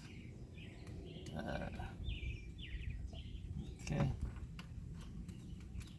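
Faint birds chirping over a low, steady background rumble.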